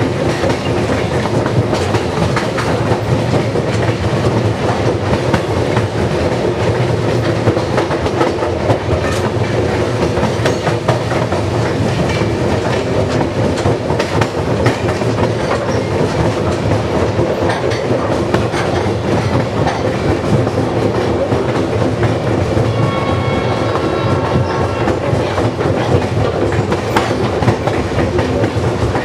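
Cuyahoga Valley Scenic Railroad passenger train rolling along, heard from aboard the car: a steady rumble with wheels clicking over the rail joints. A faint high ringing tone comes in briefly near the end.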